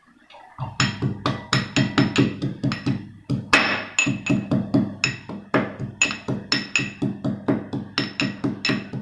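Pestle pounding fresh ginger in a mortar (okhli). The strikes start about half a second in and go on steadily at roughly three a second, each with a short ring.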